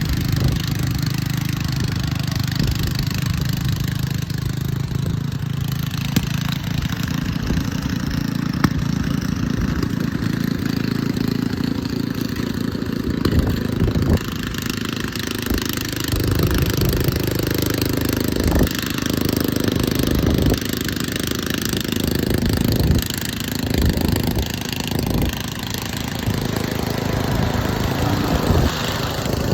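An engine running steadily at idle, less even in the second half with several short changes.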